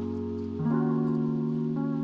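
Background music: sustained instrumental chords that change once a little over half a second in.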